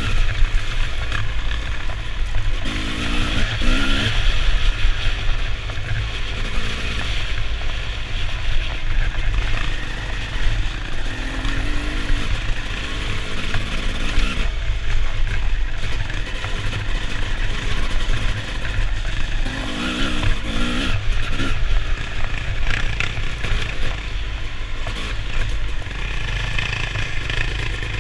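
Dirt bike engine running over rough ground, its pitch rising and falling as the throttle opens and closes, with heavy wind rumble on the microphone.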